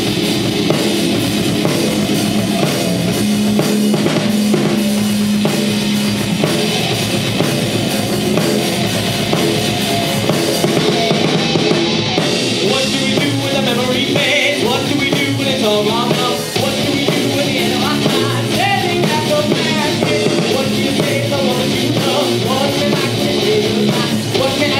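Live metal band playing loud: electric guitar, bass guitar and drum kit, with a vocalist coming in about halfway through.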